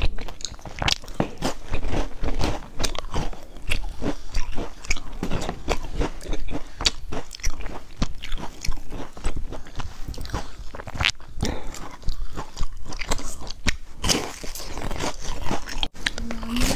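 Close-miked chewing and crunching of crisp sesame-rimmed sandwich biscuits: an uneven run of many small, sharp crunches, with a new bite taken near the end.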